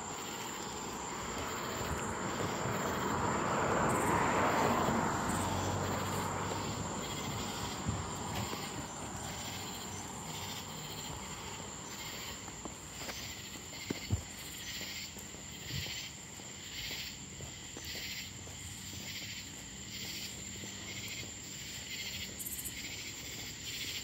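A night chorus of crickets: a steady high-pitched trill with evenly repeated chirps about one and a half times a second. A broad rushing noise swells and fades over the first several seconds.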